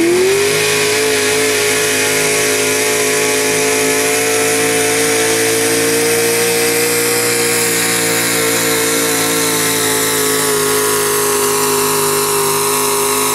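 Pickup truck's engine at full throttle pulling a sled. The revs climb at the start, then hold at a steady high pitch that sags slightly as the load builds. The engine drops off abruptly at the end as the throttle is released.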